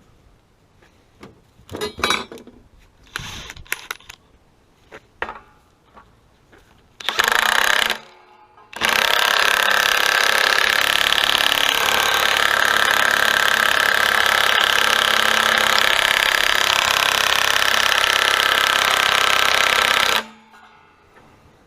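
Air or electric impact wrench on a water heater's anode rod: a brief burst about seven seconds in, then a long continuous run of about eleven seconds that stops abruptly. A few loose knocks and clanks of tools being handled come first.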